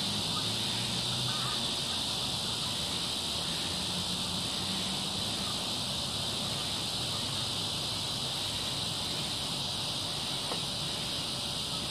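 Steady, high-pitched chorus of insects, with a faint regular pulsing underneath.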